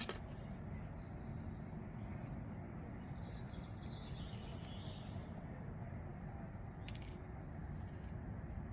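Small sharp clicks and ticks from a screwdriver and tiny parts being handled while reassembling a folding knife, with one louder click at the start, over a steady low background hum.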